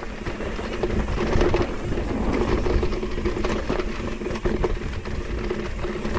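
Mountain bike rolling fast down a dirt trail: tyres over rough ground with a steady rumble, constant rattling and clicking from the bike, and an on-off buzz under it.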